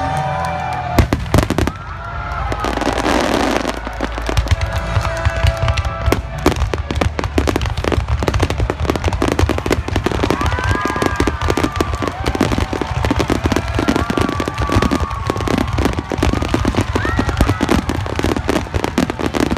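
Fireworks finale: a dense, continuous barrage of shell bursts and crackling, with a big bang about a second in and the barrage thickening a few seconds later. Music plays underneath.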